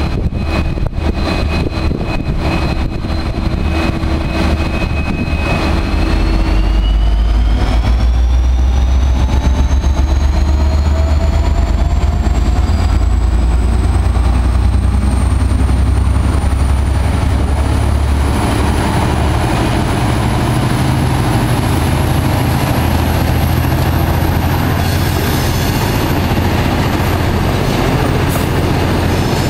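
V/Line N-class diesel-electric locomotive pulling away from a standstill with a passenger train. Its diesel engine's low rumble grows louder about six seconds in as it powers up, and a high whine climbs steadily in pitch as the train gathers speed. Near the end the passenger carriages roll past, their wheels clicking over the rail joints.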